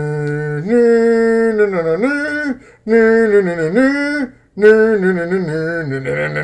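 A man singing a wordless tune a cappella: long held notes that slide between pitches, in three phrases with short breaks between them.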